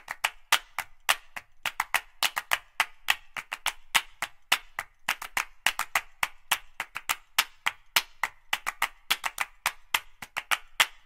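Knife chopping on a cutting board: quick, irregular, dry taps, about five a second.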